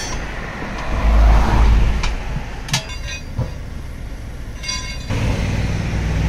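A pneumatic impact wrench working on the trailer wheel's nuts in short rattling bursts, twice, over a running engine and road traffic; a heavy vehicle rumbles past about a second in.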